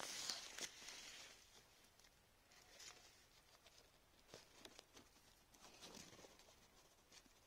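Faint rustling of cherry-tree leaves brushing past, strongest in the first second, then a few soft scattered clicks and crackles.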